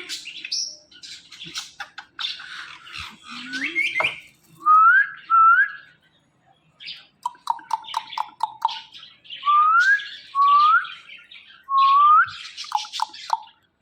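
A pet parrot calling: harsh squawks and chirps mixed with several short rising whistles, and a quick run of short clipped notes a little past halfway.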